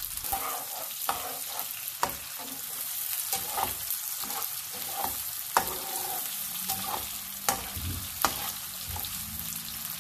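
Chopped onions sizzling as they fry in a nonstick pan, stirred with a metal spatula that clacks sharply against the pan several times.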